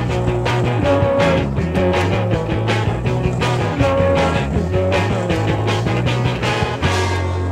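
Rock music with drums, bass guitar and a repeating guitar melody over a steady beat. Near the end the drums stop and a low bass note is held.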